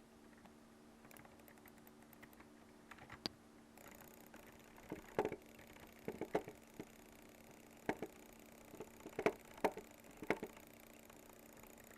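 A series of sharp clicks at an irregular pace, faint at first and louder from about five seconds in, some coming in quick pairs, over a faint steady hum.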